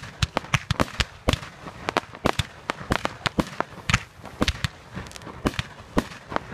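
Fireworks display firing a rapid, irregular string of sharp bangs, about four or five a second, as small aerial shells burst overhead.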